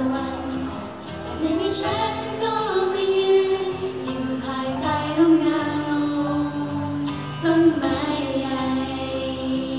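A woman singing a Thai pop song live into a handheld microphone, in long held notes over an instrumental backing.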